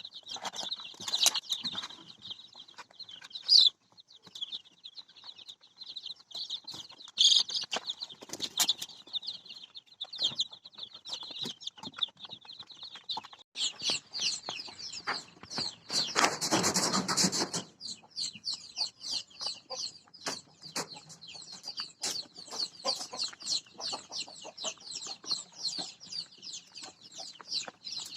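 A flock of day-old ayam kampung super chicks peeping constantly, many high, short chirps overlapping, with a brief burst of rustling or wing flapping just past the middle.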